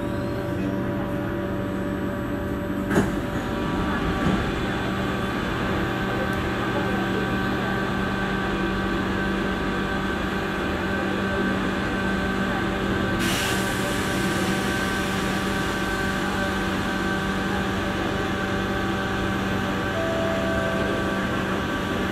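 Steady hum inside a Singapore MRT train car standing almost still on the track, with several steady tones from the car's equipment. A short click comes about three seconds in, and a hiss comes in about thirteen seconds in and stays.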